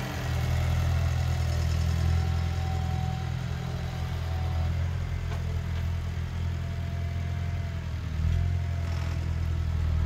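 Large farm tractor's diesel engine running, a steady low drone that dips briefly about eight seconds in.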